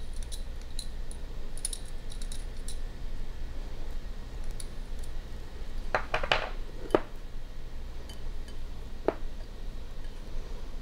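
Small metal whisk stirring flour in a glass mixing bowl: soft scraping, with a few clinks against the glass about six to seven seconds in and once more near nine seconds.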